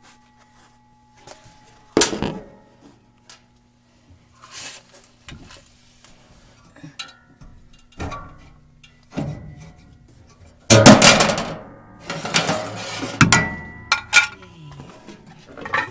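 Metal knocks and clinks from hands working parts among the suspension springs inside a Maytag washer cabinet: a sharp knock about two seconds in, a few lighter clinks, then a loud scraping rattle lasting a few seconds in the second half.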